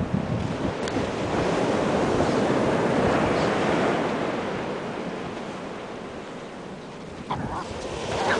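Ocean surf breaking and washing up the beach, swelling over the first few seconds and then fading away, with wind buffeting the microphone.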